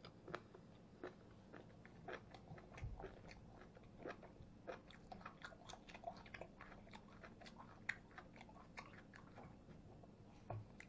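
Faint, close-up chewing of a mouthful of pork belly with shredded green onion, raw garlic and wasabi: many small, irregular wet clicks and crunches.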